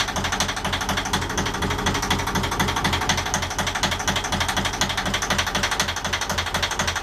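Yanmar inboard marine diesel engine running steadily, with an even, fast diesel clatter.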